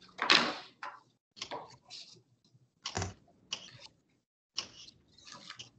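Irregular knocks and clatter of kitchen work on a countertop, about one or two a second, the loudest just after the start.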